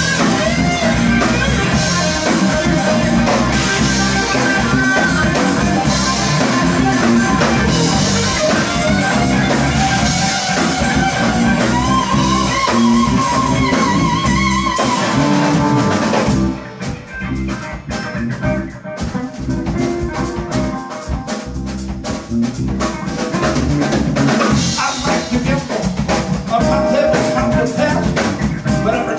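Live blues-rock band, electric guitar over bass and drum kit, playing a stretch without lyrics, the lead guitar holding a long wavering note a little before the middle. About sixteen seconds in the band drops to a quieter, sparser breakdown, then builds back to full volume about eight seconds later.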